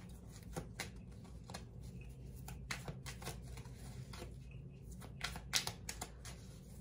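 Tarot cards being shuffled and handled: a scatter of short, irregular card flicks and taps.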